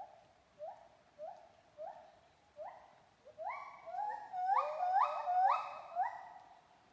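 Gibbon song: a series of rising hooting notes, one about every half second, that grow louder and come faster and overlapping about halfway through, then die away near the end, the build-up of a gibbon's great call.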